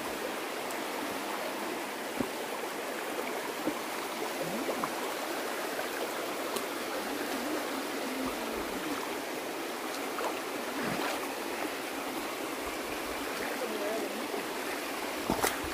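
Shallow stream running over rock slabs and stones: a steady rush of water, with a few faint clicks.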